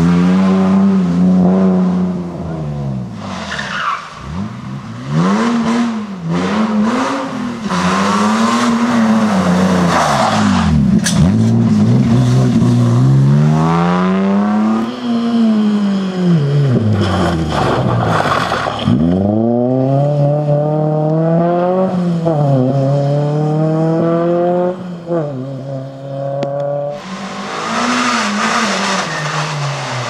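Rally cars driven flat out one after another, their engines revving high and climbing in pitch through the gears, then dropping sharply on each lift-off and gear change. Tyres skid and scrub, loudest near the end.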